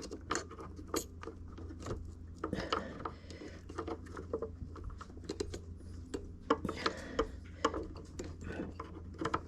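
Scattered light clicks and taps of a refrigerator compressor's start relay and overload protector being handled and pushed onto the compressor terminals, over a steady low hum.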